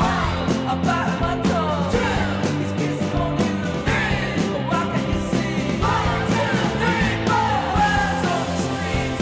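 Background music with a singing voice, playing steadily throughout.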